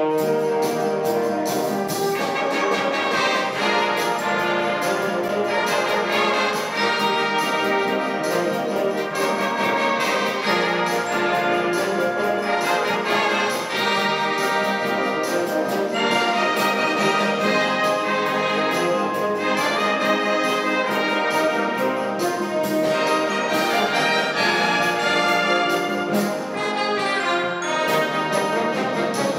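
Concert wind band playing at full strength, brass to the fore over saxophones, clarinets and flutes, with a steady percussion beat.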